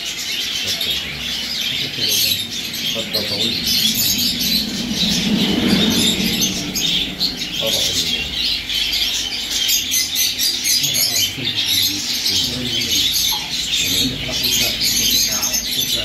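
A roomful of caged canaries chirping and singing at once: a dense, continuous high twittering chorus from many birds.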